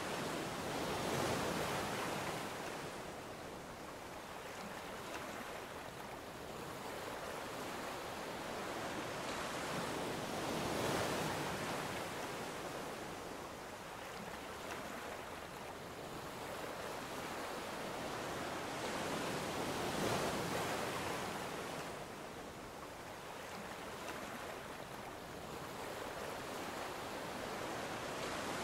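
Ocean surf washing ashore: a steady hiss that swells and fades about every ten seconds as waves break.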